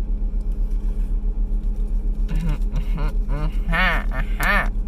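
A loud, steady low hum that pulses about six times a second, with a person's voice briefly humming or murmuring in the second half.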